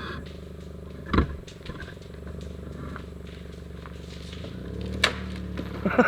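Toyota Yaris engine running steadily, then revving up from about four and a half seconds in as the car pulls on a rope to drag down a small building. A sharp knock about a second in, a crack about five seconds in, and a burst of loud cracking right at the end as the structure starts to give.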